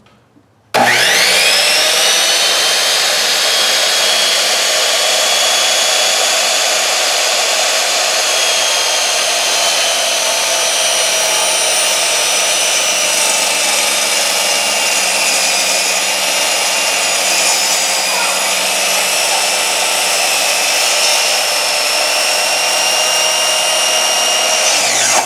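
Delta miter saw motor switching on about a second in, spinning up and running with a steady whine while its blade is lowered through a rubber hockey puck; the motor begins to wind down right at the end.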